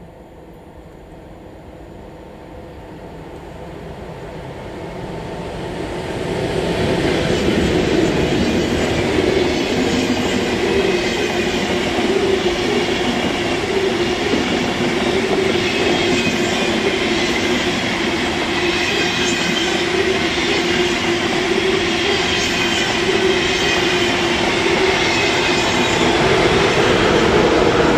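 ICE high-speed train approaching and passing at speed. The sound of wheels on rail builds over the first seven seconds or so, then stays as a loud, steady rush with a low hum while the long rake of coaches goes by.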